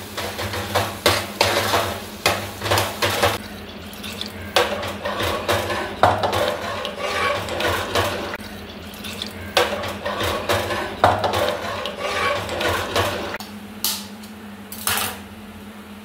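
Steel spoon scraping and clinking against the inside of a metal mixer-grinder jar, stirring thick ground masala paste and then water through it with a wet sloshing sound. The scraping is dense, then near the end thins to a couple of single clicks.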